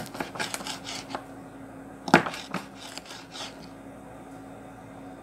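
Kitchen knife slicing small hunting sausages into thin rings, the blade tapping on the cutting board in two runs of quick strokes, the loudest about two seconds in. A faint steady low hum runs underneath.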